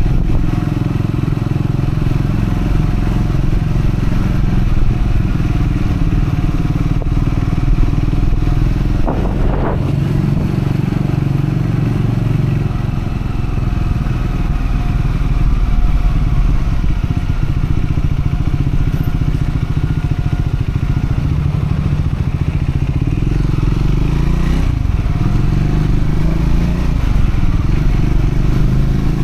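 Triumph Scrambler 400X's single-cylinder engine running steadily as the motorcycle is ridden, the new engine being run in. The engine note holds fairly even, with one brief higher-pitched sweep about nine seconds in.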